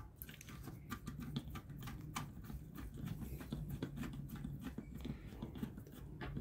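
Screwdriver turning a screw in the metal tray of an electric bakhoor burner: faint, irregular small clicks and scrapes of metal on metal.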